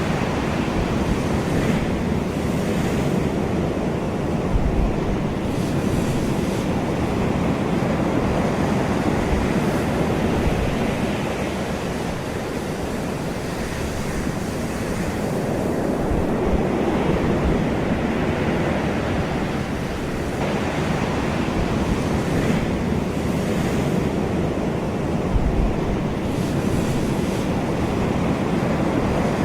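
Ocean waves breaking and washing ashore in a continuous surf, swelling and ebbing gently every few seconds.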